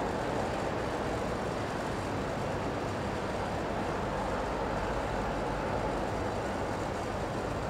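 Steady background hubbub of a large indoor exhibition hall: an even wash of distant crowd noise over a low rumble, with no single sound standing out.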